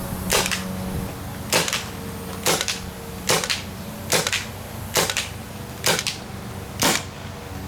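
Paintball marker firing eight single shots, each a sharp pop, at a steady pace of just under one a second.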